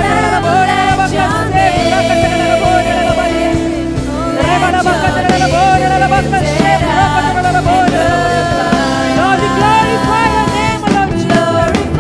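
Christian worship song: a singing voice carrying a wavering melody over held keyboard chords and bass.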